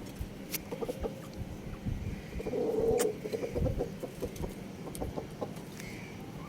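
Chickens clucking, with scattered sharp clicks; a short call about two and a half seconds in is the loudest moment.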